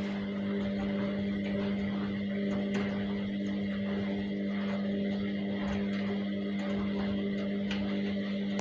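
Washing machine running with a steady motor hum, a faint repeating swish and a few light clicks.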